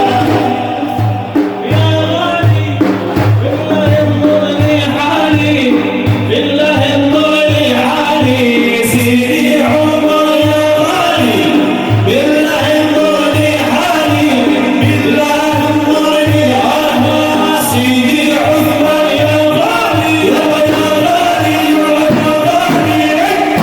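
Group of male voices chanting a Sufi devotional praise song to a steady beat of frame drums.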